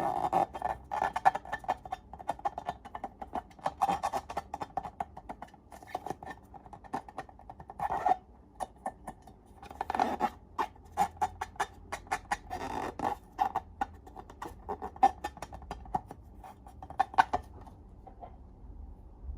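Long balloons and slime being handled close up: irregular rubbery squeaks mixed with quick crackling clicks and squelches.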